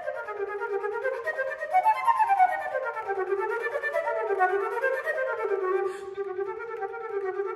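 Solo concert flute playing fast runs of notes that rise and fall, mostly in its low and middle range.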